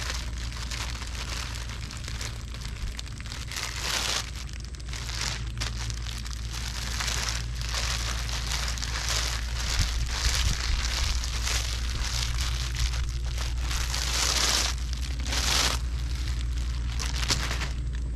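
Bubble wrap and plastic packaging crinkling and rustling in irregular bursts as it is pulled off by hand, over a steady low hum.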